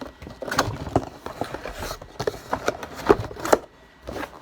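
A slime kit being unpacked by hand: a run of irregular light clicks, knocks and plastic rustling as the packaging is opened and the bottles inside are handled.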